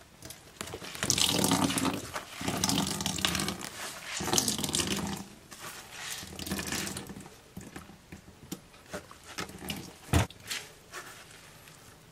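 Grated raw potato being squeezed by hand in a metal sieve over a bowl, with potato water running and dripping into the bowl in several bursts. The water is being pressed out so the potato pancakes fry crisp. A single sharp knock comes about ten seconds in.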